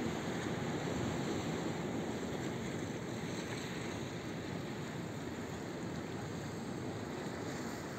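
Steady rush of surf from a rough sea breaking on a rocky shore, mixed with wind, with no single wave standing out.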